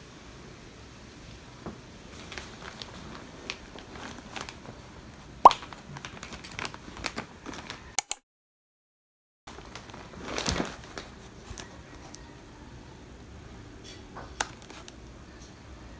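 Hands handling plastic packaging: scattered clicks, rustles and crinkles, the loudest a single sharp click about five seconds in, broken by a moment of dead silence just past halfway.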